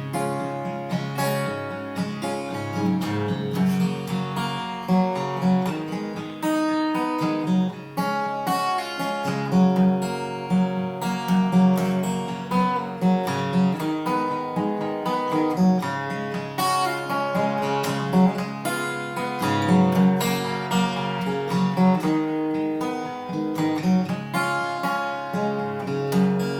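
Acoustic guitar strummed in a steady rhythm with no voice, an instrumental break between verses of a folk song.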